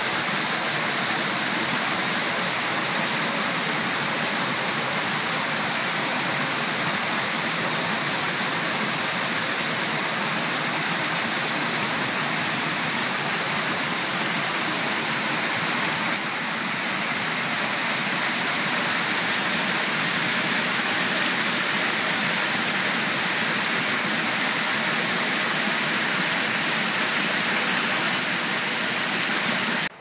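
Water pouring over a stone spillway wall and splashing into the pool below, a steady, loud rush.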